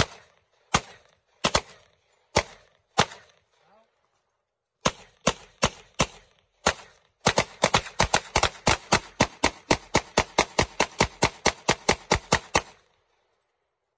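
Pistol shots. A handful of single shots come about a second apart. After a short pause there is another group of five, then a long steady string of rapid fire, about four to five shots a second, for around five seconds, which stops about a second before the end.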